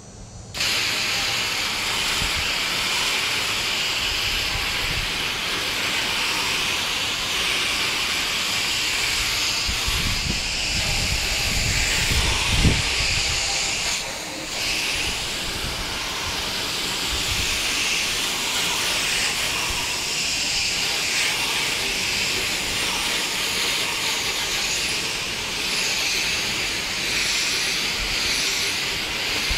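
Garden-hose spray nozzle hissing as a jet of water hits the fins of an air-conditioner condenser coil, rinsing off foaming coil cleaner. The spray starts about half a second in and runs steadily, with a brief dip about fourteen seconds in.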